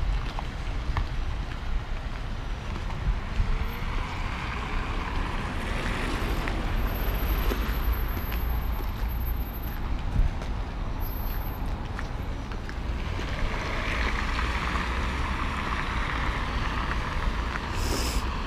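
Cars passing on a wet road, their tyres hissing as each swells and fades, twice, over a steady low rumble of wind on the microphone.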